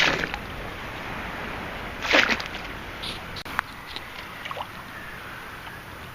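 A sand scoop scraping and rattling in wet sand and stones: one short, loud scrape about two seconds in, then a sharp click and a few light ticks, over steady wind and surf.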